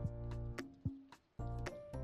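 Background music: a melody of separate, clearly struck notes over a low bass.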